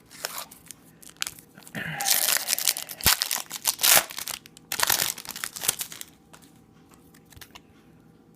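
A trading-card pack wrapper being torn open and crinkled, a run of ripping and rustling from about two seconds in until about six seconds in, with a few sharp crackles.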